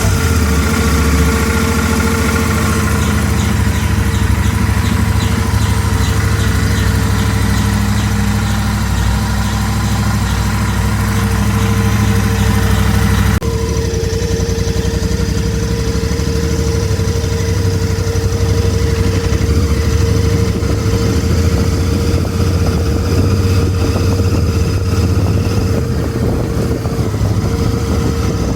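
Royal Enfield Interceptor 650 parallel-twin engine running at a steady idle, with a steady howl over the engine note. The owner takes this howl for an abnormal engine sound. About halfway through, the sound changes abruptly.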